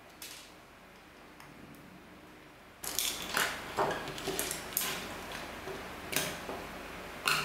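Small plastic clicks and knocks from a cheap PTZ security camera's plastic housing and loose parts being handled and pulled apart. One faint click comes just after the start; from about three seconds in there is a busy run of irregular sharp clicks and clatter.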